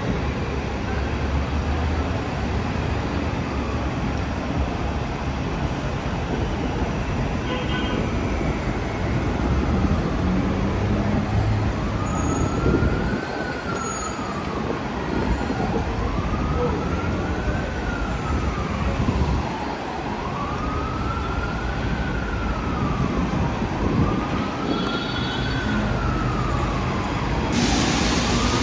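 Emergency vehicle siren wailing, rising and falling slowly about every three and a half seconds and growing clearer about ten seconds in, over steady street traffic. A hiss starts near the end.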